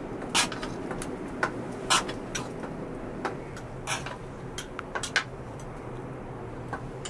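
Wood fire crackling under a cooking pot: irregular sharp pops and snaps over a steady low rush.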